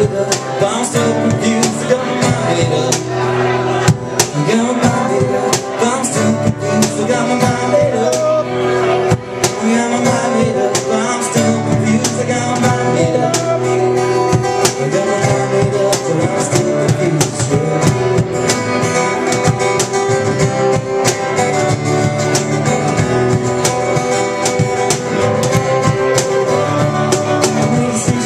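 Live acoustic band music: two acoustic guitars strummed over a steady percussion beat.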